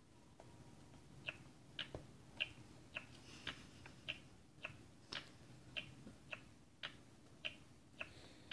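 Electronic baby doll's mechanical mouth clicking faintly and rhythmically, about two clicks a second, as it 'chews' on a toy spoon held to its lips. The clicking starts about a second in.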